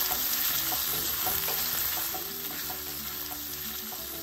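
Bacon sizzling in a hot cast-iron skillet while being stirred and turned with a wooden spatula; the sizzle eases slightly about two seconds in.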